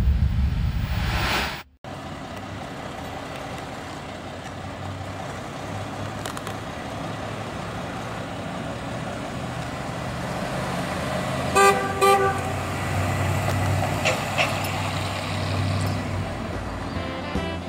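A rebuilt 350 cubic-inch Chevrolet V8 in a 1957 Chevrolet Nomad running as the car drives slowly around, its sound slowly growing louder. A little over halfway through come two short horn toots. It opens with the loud tail of a logo sound-effect swell that cuts off abruptly just under two seconds in.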